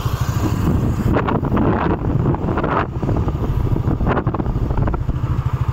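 Heavy wind buffeting on the microphone of a phone carried on a moving motorcycle with no windshield, a dense low rumble that flutters throughout, over the hiss of the rushing air.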